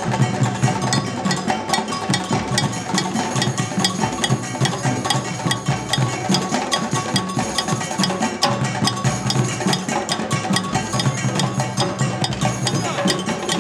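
Drum circle playing a steady, dense rhythm together on hand-played djembes and congas and stick-played dunun drums.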